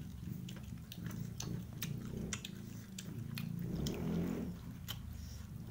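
Close-up chewing and lip-smacking of people eating rice by hand, with a string of sharp wet mouth clicks.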